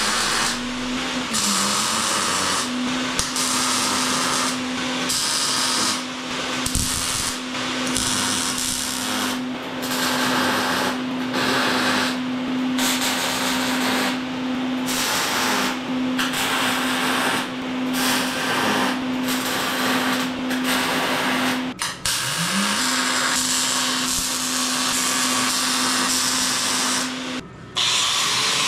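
Bauer electric grinder whining at full speed as it grinds steel, the grinding noise coming and going every second or so as the wheel is pressed on and lifted off. The motor spins up at the start, is switched off and spun up again about 22 seconds in, and stops shortly before the end.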